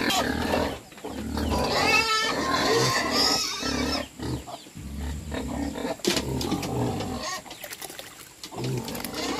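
Domestic pigs grunting and squealing, with a high wavering squeal about two seconds in.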